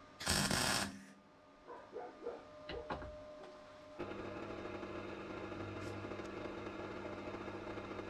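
A short burst of arc welding near the start, followed by a few knocks and clinks of metal; about halfway through, a pillar drill's motor starts a steady hum that runs on.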